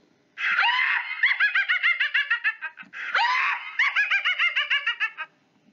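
Cartoon witch cackling sound effect: high-pitched, rapid cackling laughter in two bouts, the second starting about three seconds in, marking a wrong reading of a tricky word.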